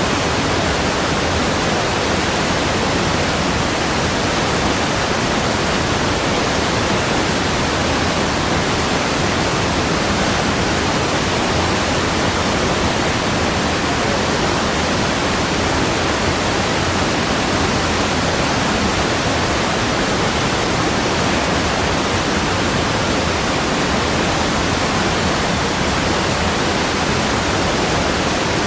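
Constant rush of water, an even hiss across low and high pitches with no separate splashes or drips, steady in level throughout.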